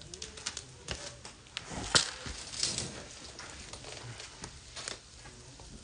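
Scattered crackles and small pops from a charcoal fire in a shichirin grill cooking skewered chicken wings, with one sharper knock about two seconds in.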